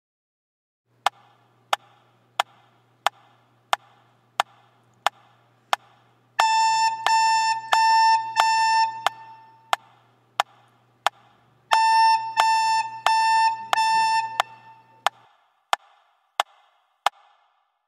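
Recorder playing the note A as four quarter notes, a bar of rest, then four more, over a metronome clicking steadily at about 90 beats a minute. The clicks count in two bars before the first note and carry on for a bar after the last.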